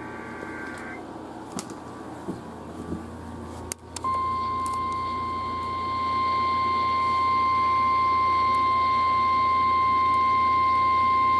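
Emergency alert tone received on a radio: after about four seconds of low hiss with a few faint clicks, the single steady 1050 Hz warning alarm tone that heralds a severe thunderstorm warning comes on and holds, growing slightly louder a couple of seconds later.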